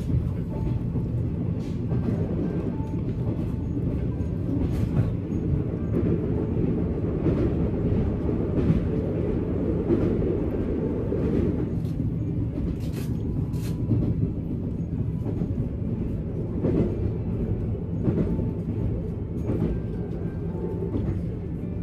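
Steady low rumble heard inside the cabin of a moving JR Shikoku diesel railcar: wheels on the track and the running diesel engine, with faint scattered clicks now and then.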